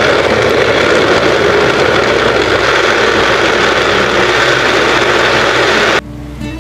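Electric countertop blender (VNTech) running at full speed, grinding a batch of vegetables into a sauce, with a loud steady whirr. It cuts off suddenly about six seconds in.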